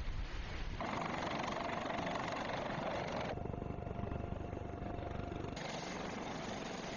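Steady wind and sea noise, then from about three seconds in a helicopter running, its engine giving a steady whine over the rushing noise. The sound changes abruptly at several cuts.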